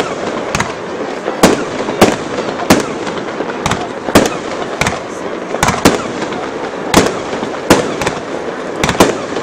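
Aerial fireworks shells bursting, sharp bangs going off irregularly at more than one a second over a steady background din.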